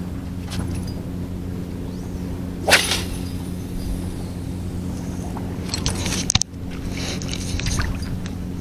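A steady low motor hum, broken by one sharp noise about two and a half seconds in and a short clatter ending in a click about six seconds in.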